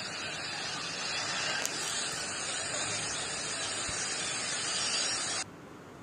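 Floodwater rushing past in a heavy torrent: a steady, dense rush of water that cuts off abruptly a little before the end.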